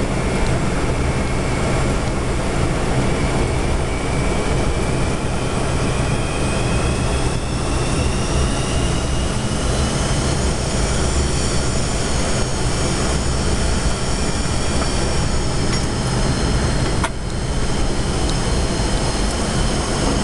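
Steady in-flight cockpit noise of a KC-135 jet tanker: a heavy rumble of airflow and engines, with several high whining tones that slowly rise in pitch between about four and ten seconds in. A brief drop in the noise comes near the end.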